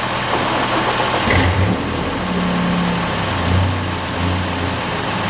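Straight-six pickup truck engine revving hard under load while towing a stuck semi truck by chain. Engine notes come in strongly about a second in and rise and fall, over a steady rushing noise.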